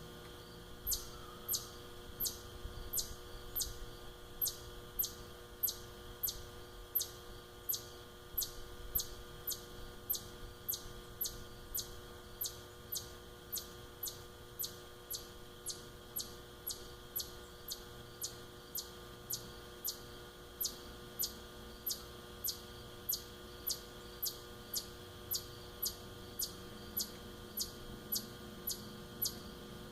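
A small animal chirping: short, high-pitched chirps repeated in a steady rhythm, about two a second, over a low steady hum.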